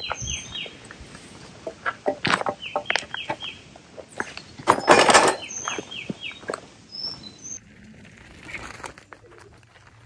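A songbird repeating a short phrase of four quick falling notes about every two and a half seconds, over knocks and clatter from footsteps and a garden cart pulled over dirt and gravel; the loudest rattle comes about five seconds in.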